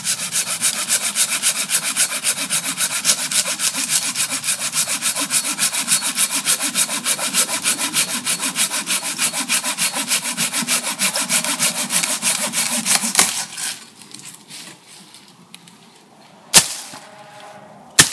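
Hand saw cutting through a dead branch in fast, even back-and-forth strokes, stopping about 13 seconds in. Two sharp cracks of wood follow near the end.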